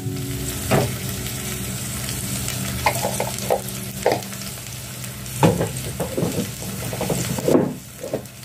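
Onion and ginger-garlic masala frying in an aluminium pot with a steady sizzle. Scattered clinks and scrapes against the pot come through it.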